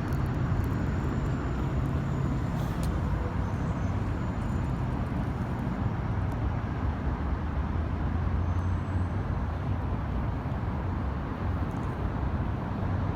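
Steady low rumble of outdoor background noise, with no distinct events and no speech.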